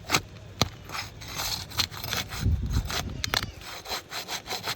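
Crowbar scraping and clicking under a 3-tab asphalt shingle as it is pried up from the roof, with a heavier thud about halfway through.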